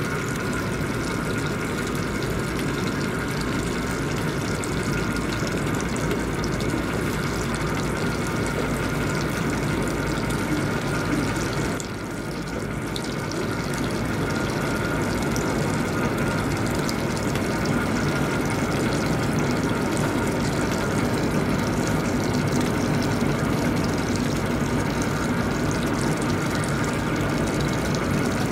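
Steady rushing of water and engine drone from a boat underway at speed, with a faint steady whine on top; the level dips briefly about twelve seconds in.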